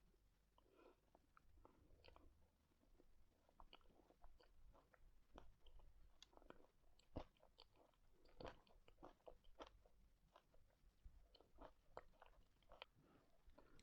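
Faint mouth sounds of someone eating ice cream: soft chewing with many small irregular clicks and smacks.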